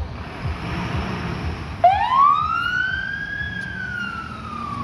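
Fire engine siren starting up about two seconds in: one wail that rises quickly, then falls slowly. The truck is setting off on a call-out.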